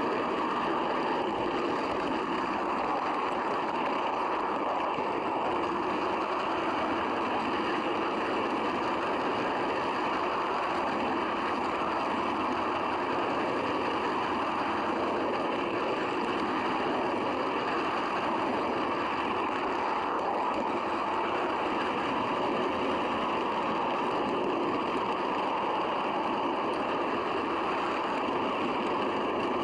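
A model train rolling steadily along the track, heard from a camera riding on one of its coaches: an even, continuous running noise from the wheels and mechanism.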